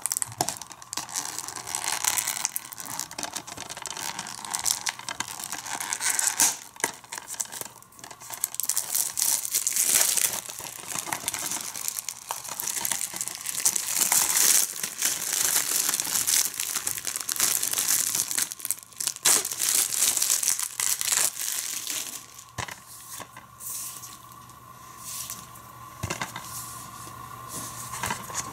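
Plastic shrink-wrap being picked at, torn and peeled off a DVD case: irregular crinkling and tearing, busiest through the middle and quieter near the end.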